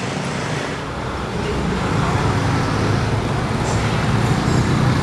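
Road traffic at a level crossing: motorcycle and car engines running as a stream of vehicles drives over the tracks. It gets louder about a second and a half in.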